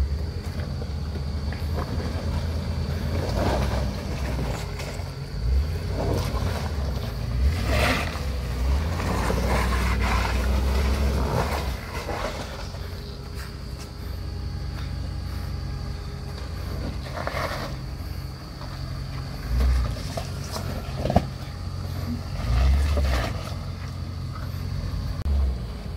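Land Rover Discovery 2 engine running at low revs as the truck crawls up a rock ledge, swelling briefly a few times as the throttle is blipped. A few short knocks stand out.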